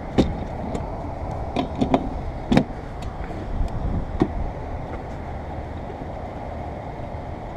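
A few sharp clicks and knocks of parts being worked loose at the base of a car's windshield, over a steady low rumble of background noise.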